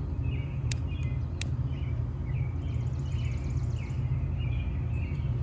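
Backyard ambience: a steady low hum under birds chirping, with two sharp clicks about a second in.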